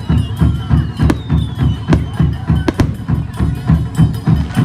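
Japanese taiko drums beating a steady rhythm, about three deep beats a second, with a few sharp cracks over it.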